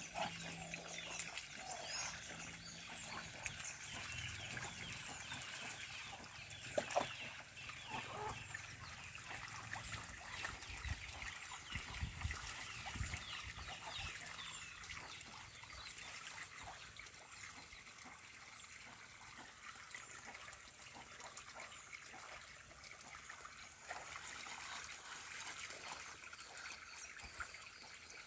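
Muscovy ducks splashing and paddling in a shallow muddy puddle, the water trickling and sloshing, with clucking calls of barnyard fowl.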